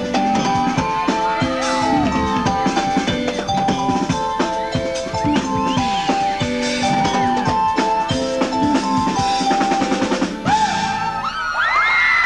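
Live pop-rock band music: a drum kit beating steadily under a repeating run of held keyboard notes. About ten seconds in the song breaks off and a crowd of fans screams and cheers.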